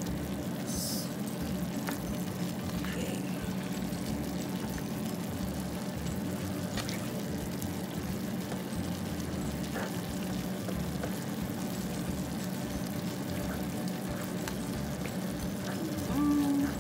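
Rice noodles and broth simmering in a pan, a steady bubbling hiss, with a few light clicks of a spatula against the pan as the pancit bihon is stirred.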